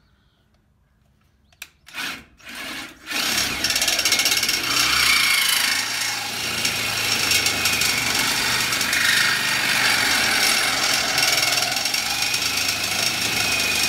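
Reciprocating saw cutting through a square galvanized steel trailer tongue: a few short starts in the first three seconds, then a steady cut with the blade grinding through the metal.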